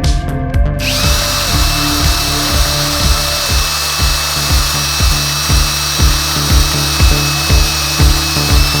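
Power drill spinning up about a second in and running steadily at one pitch, over background music with a steady beat.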